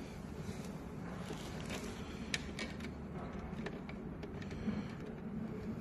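Light clicks and handling noises of work on a treadmill motor's ground-wire connection, over a steady low background hum; the sharpest clicks come about two and a half seconds in and again near the end.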